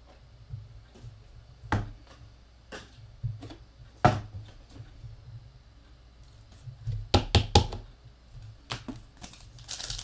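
Trading cards being handled and tapped down on a table: scattered sharp clicks, the loudest about four seconds in and a quick cluster of several around seven seconds. Near the end a foil card-pack wrapper starts to crinkle.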